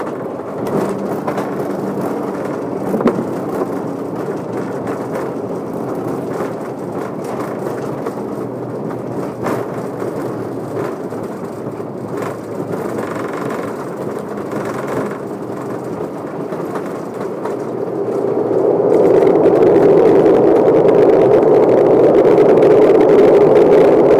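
Airliner cabin noise on the runway during landing: a steady rumble of engines and rolling wheels, with a few light knocks, that swells and stays louder about three quarters of the way through.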